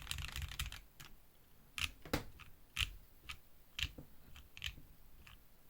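Mechanical keyboard with lubed Tealios V2 linear switches: a quick run of typing, then single keystrokes spaced about half a second to a second apart.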